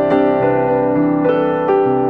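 Soft background piano music, notes struck every fraction of a second and left ringing into one another.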